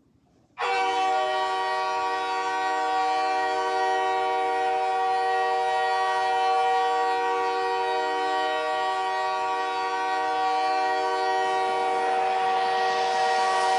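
Montreal Canadiens' goal horn sounding after a goal, a chord of several held tones that starts abruptly about half a second in and holds steady. Near the end a wash of noise swells up beneath it.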